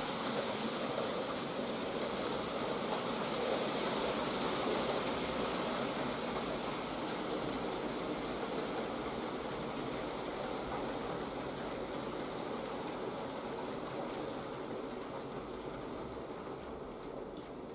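Model freight train rolling around a layout behind a Fleischmann class 151 locomotive: a steady rushing rumble of many small metal wheels on the rails, slowly getting quieter over the second half.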